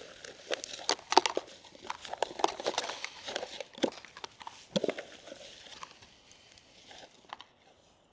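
Takeaway food packaging being handled and opened: crinkling paper and sharp clicks and snaps, dense for the first few seconds, then sparse and dying away.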